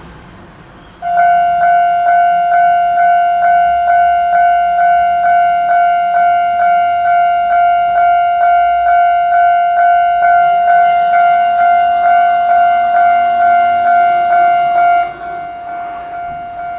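Japanese railroad crossing warning bell starting about a second in: a loud, steady clanging tone struck about twice a second, signalling that a train is approaching. Near the end it becomes quieter and keeps ringing.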